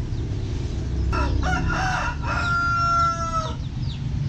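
A rooster crowing once, starting about a second in: a few short broken notes, then one long held note, over a low steady background rumble.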